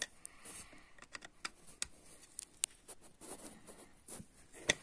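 Faint, scattered small clicks and taps of a screwdriver on a metal hose clamp of a motorcycle's throttle-body intake manifold, with a sharper click near the end.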